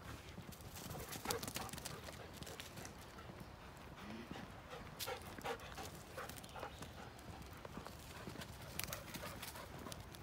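Faint, irregular footsteps on a dirt path strewn with dead leaves and twigs, with scattered light clicks and rustles.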